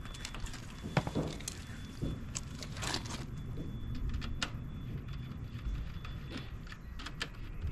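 Irregular light clicks, taps and scrapes of hands working on the wall connector's wiring and plastic parts, over a steady low background rumble.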